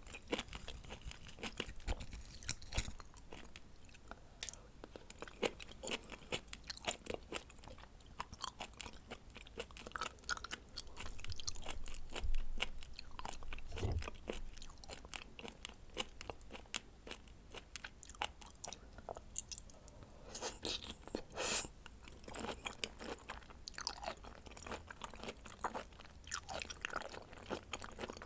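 A person chewing and biting raw seafood (red shrimp and scallop sashimi) close to the microphone: a dense run of short, sharp mouth clicks and crunches.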